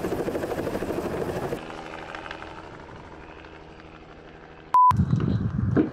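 Helicopter rotor chopping as it climbs away, dropping off sharply about a second and a half in and then fading out. Near the end, a short, loud, pure electronic beep.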